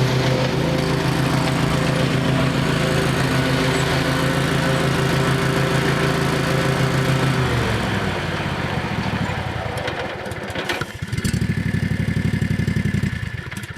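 Exmark Viking zero-turn mower's 15 hp Kawasaki FH430V V-twin engine running steadily at speed. About seven and a half seconds in its pitch falls as it winds down. Near the end it runs for about two seconds at a low, pulsing idle, then cuts off.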